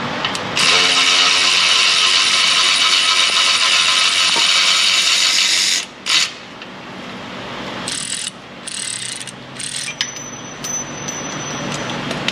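Power ratchet spinning out an exhaust manifold bolt on a 5.7 Hemi V8, running steadily for about five seconds and stopping suddenly, then a sharp click and a few light metal rattles.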